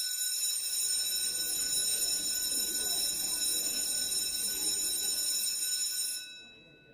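A loud electric bell ringing steadily, then stopping about six seconds in and dying away.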